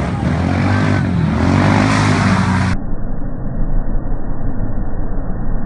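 A vehicle engine running steadily, its pitch swelling a little. About three seconds in the sound turns abruptly duller and muffled, and a steady low rumble continues.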